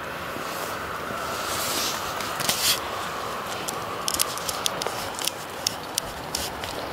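Green paintball smoke grenade burning, with a steady hiss of smoke pouring out and a brief louder rush about two and a half seconds in. Over the last three seconds, a run of sharp irregular clicks and crackles.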